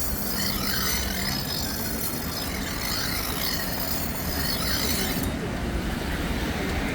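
A knife being sharpened, the blade scraping with a squeal that rises and falls in pitch stroke after stroke, over a steady low hum.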